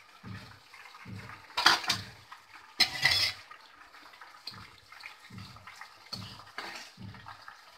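Banana slices sizzling in hot frying oil, with two sudden louder sizzles about two and three seconds in as salt water hits the oil. Later a slotted spoon stirs the slices, with smaller scrapes and splutters. A soft low pulse repeats about every three-quarters of a second underneath.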